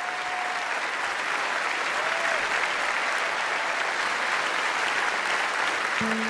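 Water rushing down a waterfall in a steady, even hiss.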